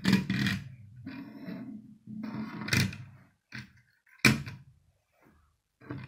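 Small plastic Lego car rolled and scraped across a wooden tabletop in a few short stretches, then a few sharp knocks as it is handled and set down, the loudest about four seconds in.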